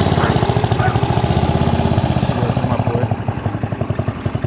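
Hot rod tractor's engine running with a fast, even pulse, dropping about three seconds in to a slower, uneven idle.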